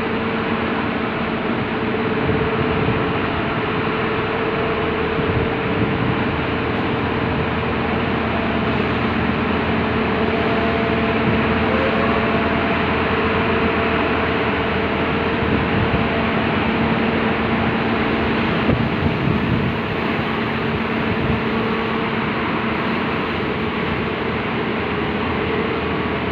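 Automatic bus washing machine running: a loud, steady wash noise with a constant hum underneath.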